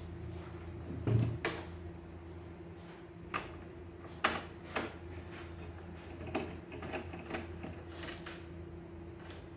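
A plastic CNY E900 embroidery machine is handled on a wooden bench and a long screwdriver is worked into a screw in its base. There are a few sharp knocks and clicks of plastic and metal, the loudest about a second in, then lighter ticks, over a steady low hum.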